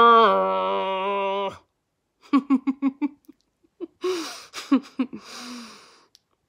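A woman's voice imitating a tuba playing flat: a held, buzzy low note that sags lower in pitch and stops about a second and a half in. Then she laughs in quick bursts and breathy giggles.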